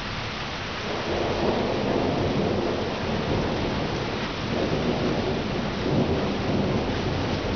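Thunder from a severe thunderstorm rumbling, starting about a second in and rolling on in several swells, over a steady hiss of rain.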